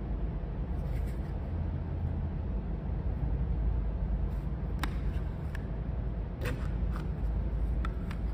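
Hard plastic toy wafer pieces clicking and tapping against each other as they are handled: a few sharp clicks, mostly in the second half, over a steady low rumble.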